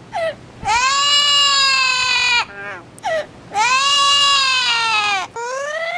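A parrot mimicking a crying baby: two long, wailing cries of about a second and a half each, with short yelps before and between them.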